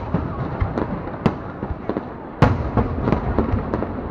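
Fireworks display: a rapid, irregular series of sharp bangs from bursting aerial shells, the loudest about two and a half seconds in, over a continuous rumble of further explosions.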